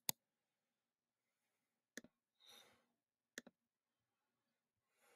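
Three sharp computer mouse clicks against near silence, the second and third each a quick press-and-release double, as video clips are paused and switched.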